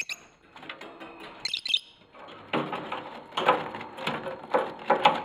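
A bird giving short, high chirps, then a run of short, irregular calls about every half second.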